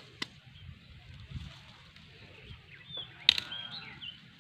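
Cassava roots being handled and broken out of the ground: a couple of light clicks, then one sharp crack about three seconds in. Short bird chirps sound around the crack.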